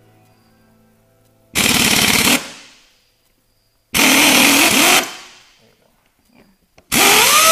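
Pneumatic impact wrench hammering in three bursts of about a second each, loosening the nuts on snowmobile track studs. The last burst ends with a whine that rises and then falls away.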